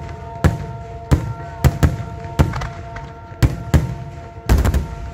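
Fireworks display: aerial shells bursting in a series of sharp bangs, roughly one every half second or so, with a rapid cluster of several bangs near the end.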